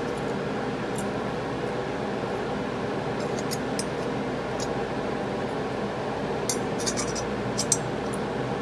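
Steady background hum of a small room, with a few light clicks and clinks scattered through it, most of them in a cluster about seven seconds in.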